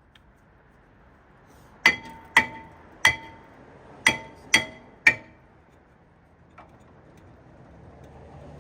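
Six sharp metal-on-metal strikes, each ringing briefly, coming about half a second apart in two sets of three.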